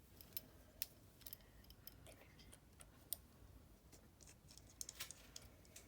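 Faint, irregular small clicks and ticks of hand tools on a phone's small parts during a repair, over near silence.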